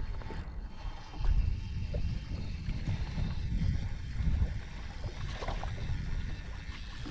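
Water sloshing against the hull of a small fishing boat, with an uneven low rumble that swells and fades.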